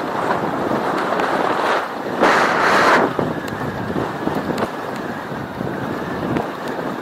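Wind rushing over the microphone of a bike-mounted camera while riding, an uneven buffeting hiss, with a louder, brighter rush lasting under a second about two seconds in.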